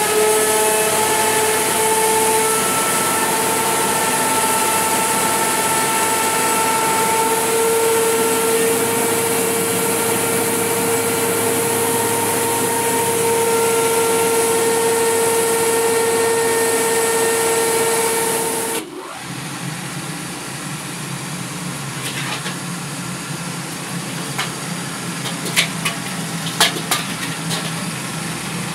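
Belt-driven rice sheller powered by a 20 hp electric motor, running steadily under load with a strong hiss and several steady whining tones. About two-thirds of the way through it cuts off abruptly. A lower, quieter hum from another belt-driven mill machine follows, with a few sharp clicks near the end.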